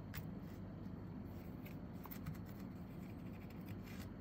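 Faint scratchy rubbing of a swab scrubbing isopropyl alcohol over a row of solder joints on an instrument-cluster circuit board, cleaning off flux residue after soldering, with scattered small ticks.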